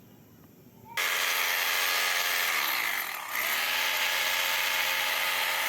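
Electric drill boring holes into a concrete slab. It starts suddenly about a second in and runs steadily, its motor pitch sagging briefly midway under load before picking up again.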